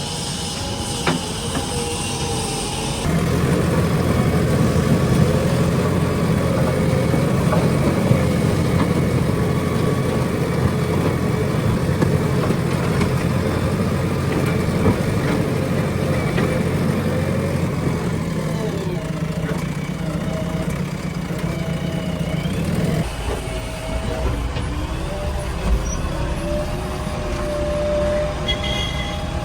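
Diesel engine of a JCB 3DX backhoe loader running hard while digging and loading soil. It grows heavier about three seconds in, then eases back about three-quarters of the way through.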